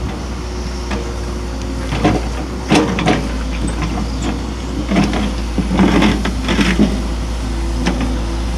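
Hitachi excavator's diesel engine running under a low steady rumble while it works a long timber pile, with a string of knocks and clunks, grouped about two seconds in and again about five to seven seconds in.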